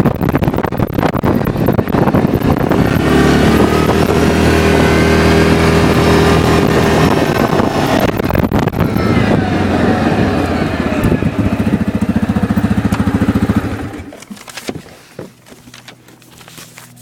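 Motor vehicle engine running steadily with wind buffeting the microphone, its firing pulses audible shortly before it cuts out about 14 seconds in.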